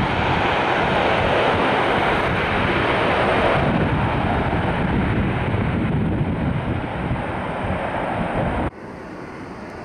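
ATR 72 twin-turboprop engines at takeoff power during the takeoff roll, a loud steady roar. It cuts off abruptly near the end, giving way to a quieter steady engine hum.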